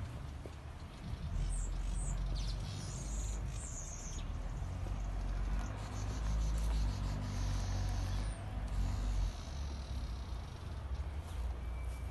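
Wind rumbling on a phone microphone outdoors, with a few short high bird chirps about two to four seconds in.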